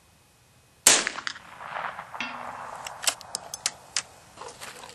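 A single shot from a Davey Crickett .22 single-shot bolt-action youth rifle: one sharp crack about a second in. It is followed by a string of metallic clicks and clacks as the rifle is lifted and the bolt is worked to clear the spent case.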